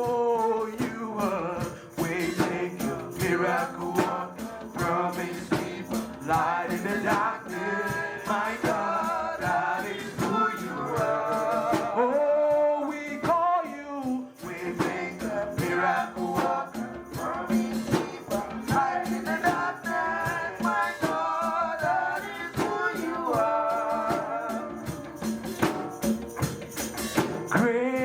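A gospel worship song with singing voices over a tambourine shaken steadily to the beat.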